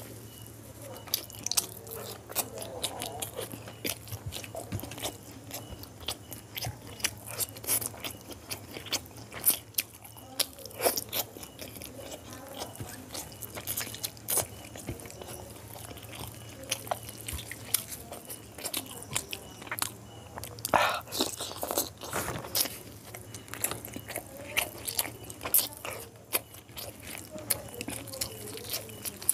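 Close-miked chewing and biting of boiled quail eggs and curried whole chicken, a steady run of irregular wet clicks and crunches, with fingers squeezing and tearing the chicken in its gravy.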